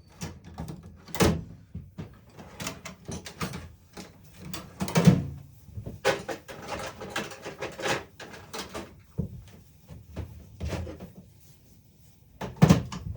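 Tools and parts being handled and set down on a workbench: a run of irregular knocks, clunks and rattles, the loudest about five seconds in.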